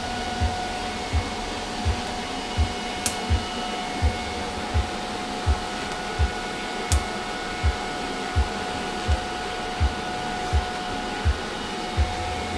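Electric welding arc hissing steadily while a steel turbo downpipe is welded, with a slow, steady beat of background music underneath.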